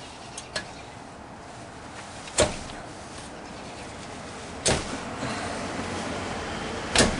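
Three sharp knocks about two seconds apart, with a couple of small clicks before them and a steady rough noise building in the last two seconds, as a cheap seal-puller tool is worked against the rear axle seal in the axle housing.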